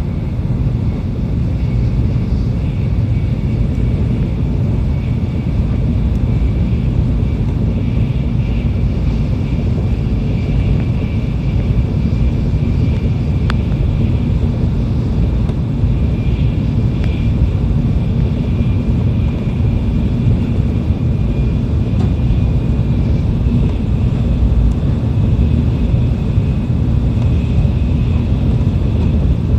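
Tokaido Shinkansen train running at high speed, heard from inside the passenger car: a steady low rumble of wheels and air with a faint high whine.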